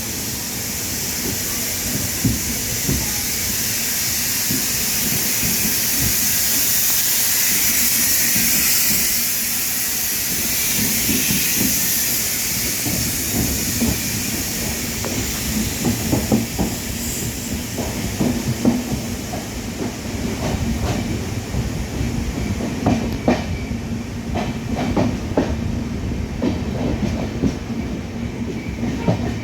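Indian Railways train running on the track: a loud hiss for the first ten seconds or so fades, giving way to the irregular clatter of wheels over rail joints.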